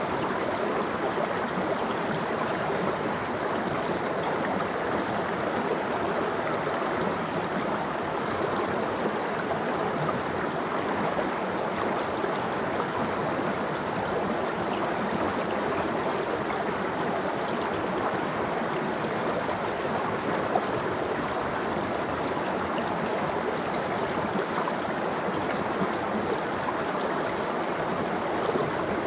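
Mountain valley stream flowing steadily, a constant even rush of water.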